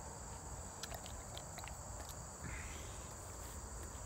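Crickets chirring steadily in the grass, a constant high-pitched drone, with a few faint clicks in the first couple of seconds and a brief rustle about two and a half seconds in.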